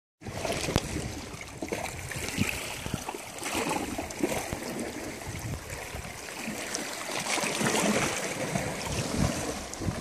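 Sea water washing over shoreline rocks, a steady rushing noise, with wind on the microphone and scattered small knocks.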